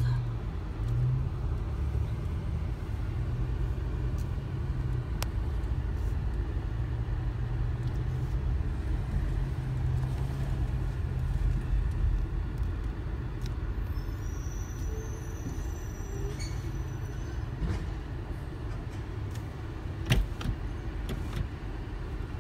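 Steady low engine rumble of a compressed-natural-gas garbage truck moving at low speed, mixed with the engine of the car following it. A brief faint high squeal comes in the middle, and a single sharp knock sounds near the end.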